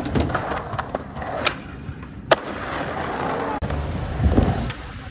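Skateboard wheels rolling on concrete, with sharp clacks of the board, the loudest about two seconds in.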